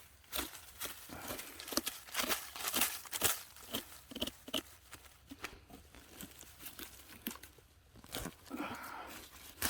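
Irregular crunching, scratching and rustling of dry leaf litter and soil on a forest floor, disturbed by a truffle dog digging and steps close by.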